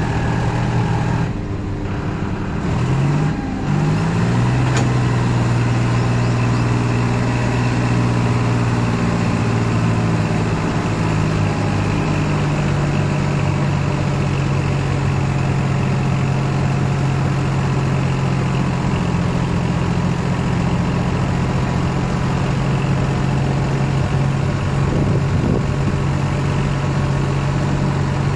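John Deere 5310 tractor's three-cylinder diesel engine running. It revs up about three seconds in, then holds a steady speed.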